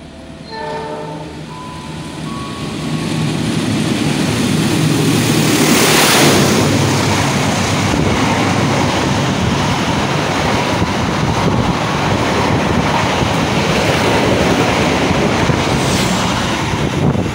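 KA Bima express train running through the station at high speed without stopping. The rush builds to its loudest about six seconds in, then holds as a steady rumble and clatter of the coaches rolling past.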